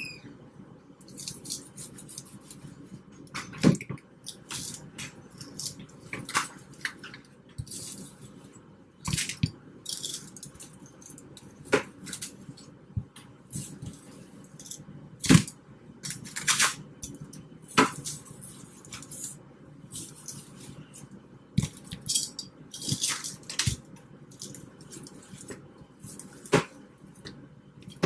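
Metal tongs and a knife clicking and scraping on raw chicken drumsticks as they are scored with small cuts, with drumsticks knocking into a plastic bowl: irregular clicks and knocks, a few sharper ones.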